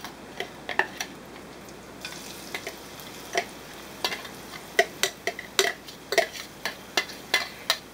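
Irregular clicks and scrapes of a metal spoon against a glass chopper bowl as chopped onion, garlic and cilantro are knocked out into ghee in a skillet. About two seconds in, a faint sizzle starts as the vegetables hit the hot fat.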